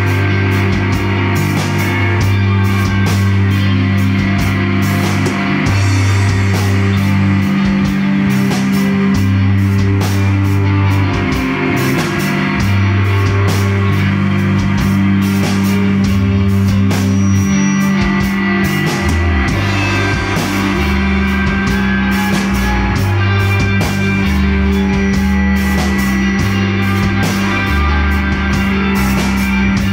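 Rock band playing live: several electric guitars over a drum kit, with a low line that moves between held notes and steady cymbal and drum hits.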